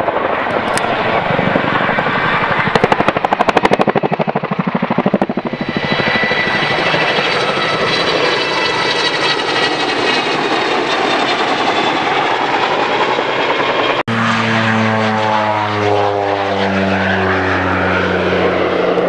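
Boeing Chinook HC3 twin-rotor helicopter passing low: the rotors' deep waka-waka blade slap pulses rapidly, then a high turbine whine rises over it as the helicopter comes close. About 14 seconds in this gives way to the steady, slowly shifting drone of an OV-10 Bronco's twin turboprop engines and propellers.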